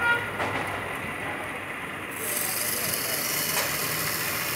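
Wood lathe running with a wooden spindle spinning, a knock just after the start; about two seconds in a turning chisel is set against the spinning wood and a steady cutting hiss joins the running lathe.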